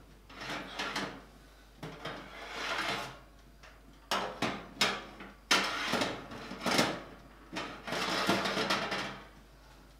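Metal racks of a gas oven being slid and shifted on their runners, with scraping and a series of sharp clanks, loudest in the middle.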